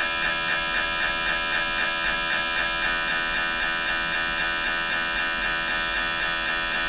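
MRI scanner's gradient coils buzzing during a scan sequence: a steady, loud electric drone, pulsing about four times a second in the first half, then evening out into a continuous tone.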